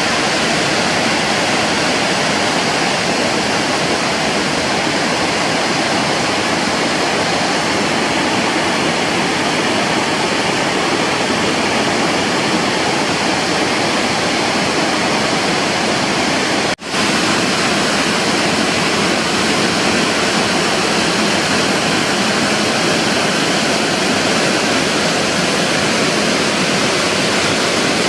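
Waterfall: falling water rushing steadily and loudly, broken by a momentary drop about 17 seconds in.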